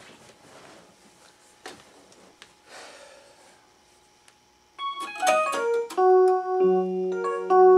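Casio electronic keyboard played with a piano sound: a quick run of notes stepping downward about five seconds in, then held chords with a low bass note. Before the playing there are only faint shuffles and a sharp knock as the player sits down.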